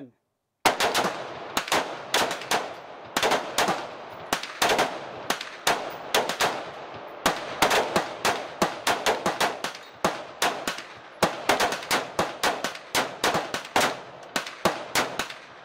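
Several rifles firing rapid, overlapping shots in a continuous volley, several shots a second, starting about half a second in.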